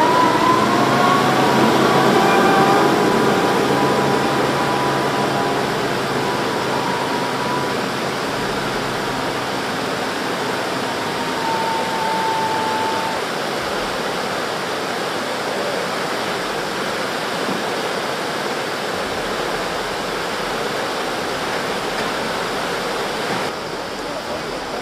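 Muddy floodwater rushing steadily. Over it, for about the first ten seconds, a wheeled excavator's engine runs with a whine that rises slightly near the start, then fades out.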